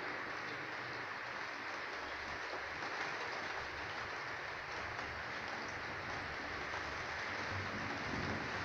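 Steady hiss of rain falling as a storm moves in.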